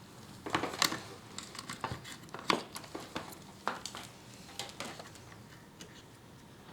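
Irregular clicks, taps and rustling from hands handling cables and small hardware on a workbench, with two sharper clicks about one and two and a half seconds in.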